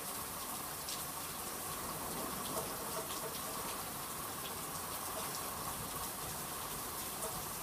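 Steady rain falling during a thunderstorm, with a few faint drop ticks now and then.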